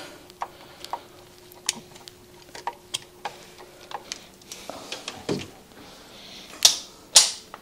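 A hand screwdriver turns faceplate screws into a cooker switch plate, making small scattered clicks and ticks as the screws bite into a back-box lug repair insert. Two louder clicks come near the end.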